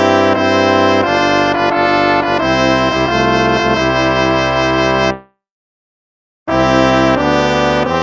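Instrumental hymn music in slow, held chords. It stops about five seconds in, and after a little over a second of silence the music starts again.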